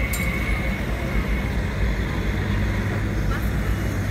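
Electric tram standing at a stop, its steady low hum under street traffic noise, with a thin high tone that stops about a second in.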